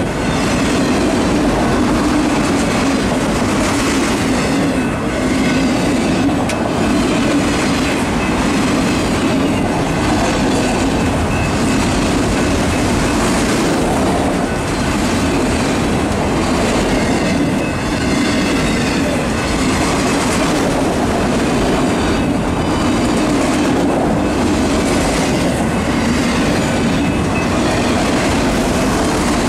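Norfolk Southern freight train of autorack cars passing at speed: a steady, loud rumble of steel wheels on the rails, with repeated clacking as the wheels cross the rail joints.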